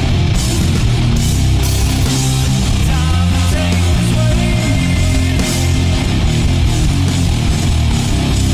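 A heavy rock song with electric guitars, playing at an even, loud level.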